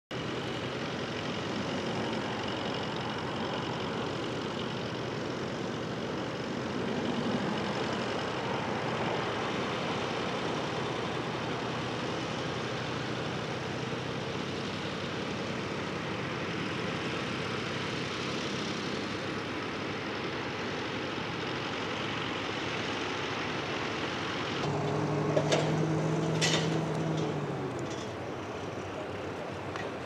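Ford 4000 tractor engine running steadily under load while pulling a plough, with other tractor engines working across the field. About 25 seconds in, a louder engine note comes up and holds for a few seconds with a few sharp knocks, then fades.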